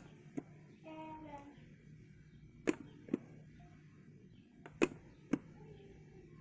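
Clicks of the touch-top night-light button on a Raynic alarm clock radio being pressed to step through its colours, mostly in pairs about half a second apart as it is pressed and let go. A brief hum of a voice about a second in.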